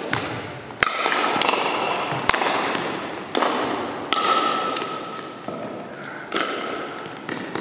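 Pickleball paddles striking a plastic wiffle ball in a rally, sharp pops about once a second that ring on in the hall.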